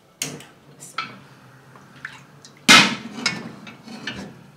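Large aluminium cooking pots knocking and clanking against each other and the gas stove's grates as they are moved and set down on the burners. There are about five metal knocks, and the loudest, a bit past halfway, rings briefly.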